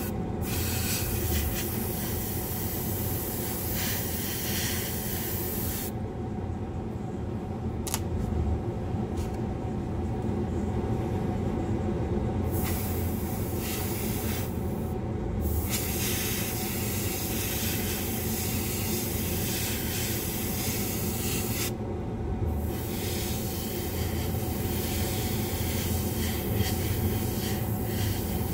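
Airbrush hissing as paint is sprayed in passes, stopping for about six seconds a fifth of the way in and twice more briefly later, over a steady low drone.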